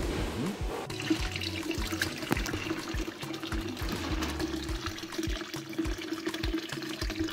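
Water running from a PVC pipe into a plastic bucket of fish and splashing as hands stir through it. Background music with a steady beat plays underneath.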